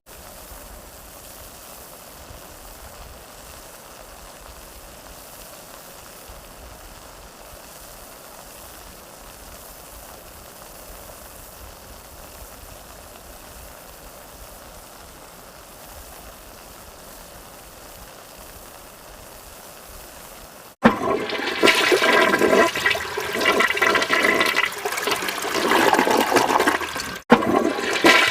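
A faint steady hiss, then about two-thirds of the way through a loud rush of water starts suddenly. It breaks off for a moment near the end and starts again.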